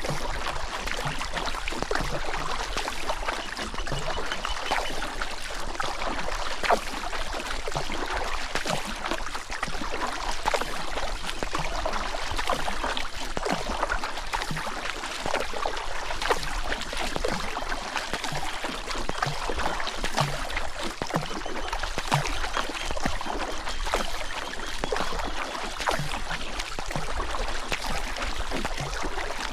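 River water rushing steadily, with many small splashes throughout.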